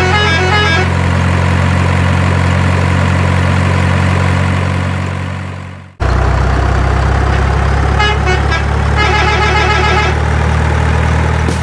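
Truck engine sound effect running steadily, fading out about halfway and cutting back in abruptly. Short runs of high beeping notes sound near the start and again about two-thirds of the way in.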